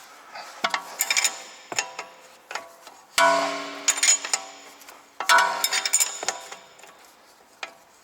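Steel hand tools and suspension parts clinking against each other, several separate strikes at uneven intervals, each leaving a ringing metallic tone that fades over a second or two.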